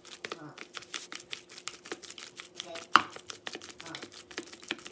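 Red plastic utensil mashing crumbled tofu in a stainless steel bowl: quick, irregular clicking and scraping against the bowl, with one sharper knock about three seconds in.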